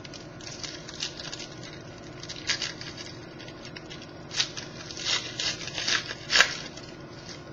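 Baseball trading cards and their packaging being handled: irregular crinkling and rustling with several sharp bursts, the loudest about six seconds in.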